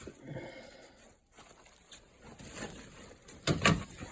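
Rustling and a few sharp knocks, the loudest knocks about three and a half seconds in.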